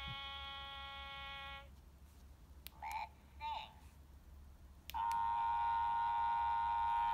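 Sing-a-ma-lings plush toys singing through their small built-in speakers: a held electronic note that stops about a second and a half in, two short sung syllables around the middle, then a second, louder held note starting about five seconds in.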